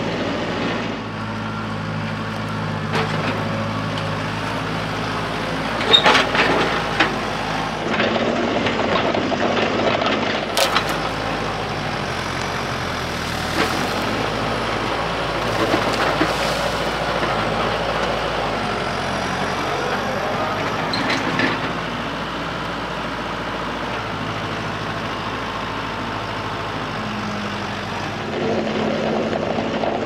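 Tractor engine running steadily as it carries and drags an uprooted tree stump in a root grapple, with several sharp knocks and clanks from the grapple and the stump.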